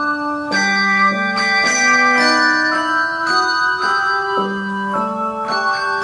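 Handbells playing a Christmas hymn, several ringing notes sounding together and changing every half-second to a second.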